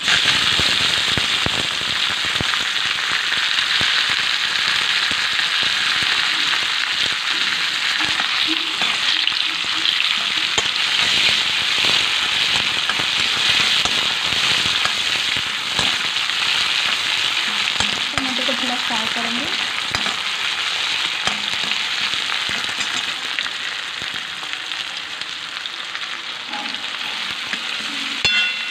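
Chopped tomatoes sizzling in hot oil in a steel kadhai, with dense crackling. The sizzle starts suddenly as they drop in and eases a little near the end. A steel ladle scrapes and stirs against the pan.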